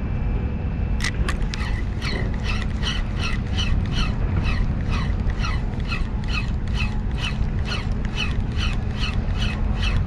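Spinning reel being cranked to retrieve a metal jig, ticking in a steady rhythm of about four clicks a second that starts about a second in, over a steady low rumble.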